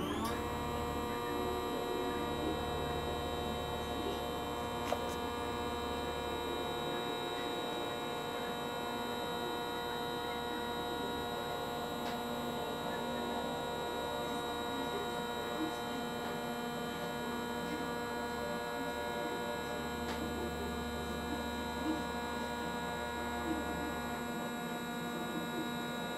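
Drive motors of a self-built GoTo mount on a 12-inch SkyWatcher Dobsonian telescope whining steadily as they slew the telescope, a set of steady high tones over a low hum. The hum drops out about seven seconds in and comes back around twenty seconds.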